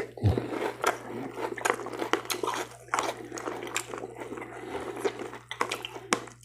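Close-up mouth sounds of someone eating crunchy breakfast cereal in milk: crunching and wet chewing with many short crackles and clicks.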